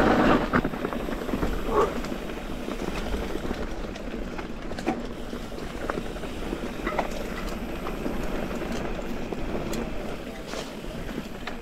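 Rocky Mountain Instinct full-suspension mountain bike ridden over rough dirt singletrack: steady tyre and trail noise with scattered rattles and knocks from the bike.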